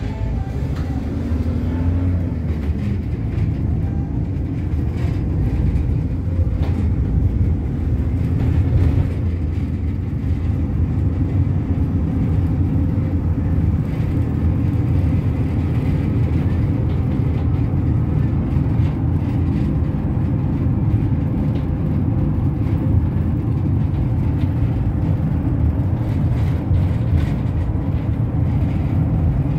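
Steady low engine and road rumble heard from inside a moving road vehicle.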